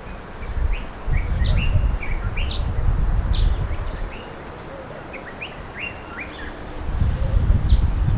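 Wild birds chirping: many short, quick high calls through the whole stretch, some rising and some falling. Under them a low rumble comes and goes, loudest for a few seconds about a second in and again near the end.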